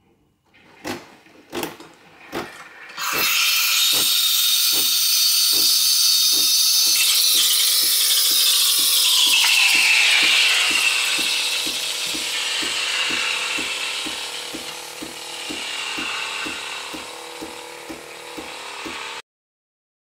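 Nespresso Creatista Plus machine running: a few clicks, then a loud hiss with a regular run of pump clicks that quickens to about three a second. The hiss's pitch slides down partway through, and everything cuts off suddenly near the end.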